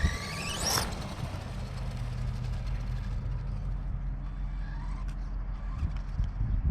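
An RC drag car's 550 brushed silver-can motor winding up in a fast, steeply rising whine as the car launches, cutting off under a second in. After that, a low steady rumble.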